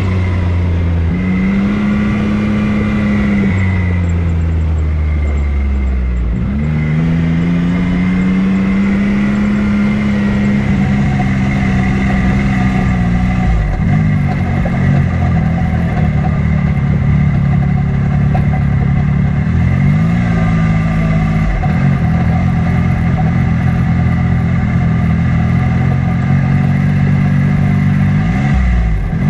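Off-road vehicle's engine running steadily on a trail. Its pitch sags a few seconds in, then climbs again, and it shifts several more times as the throttle is eased and opened.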